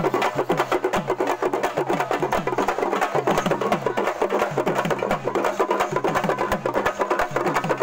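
A group of parai (thappu) frame drums beaten with sticks in thappattam, playing a fast, steady, driving beat. Each low stroke drops slightly in pitch.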